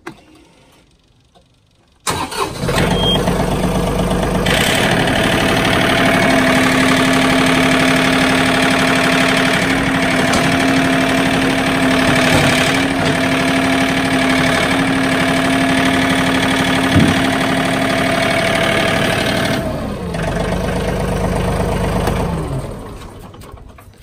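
A John Deere compact tractor's diesel engine is started about two seconds in, catches at once and runs steadily. Near the end it drops to a lower note and dies away as it is shut off.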